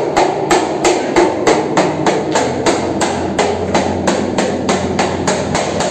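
Hammer tapping in door casing trim on a composite door frame, quick even blows about four a second, over a steady low hum.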